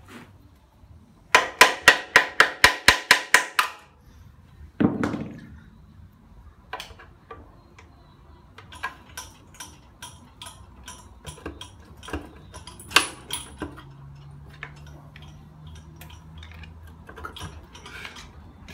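A quick run of about a dozen ringing metal strikes, about five a second, then one heavier knock, followed by scattered light metallic clicks and taps. These are hand tools at work on the engine's oil pan, which is being pried off the block with a screwdriver.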